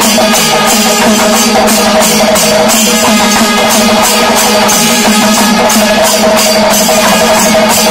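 Chenda melam: a large ensemble of Kerala chenda drums beaten with sticks and ilathalam hand cymbals clashing together in a steady fast beat, about three strokes a second, with steady held notes sounding underneath.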